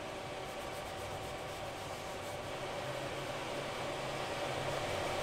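Steady workshop background noise: an even hiss with a low hum, growing slightly louder near the end.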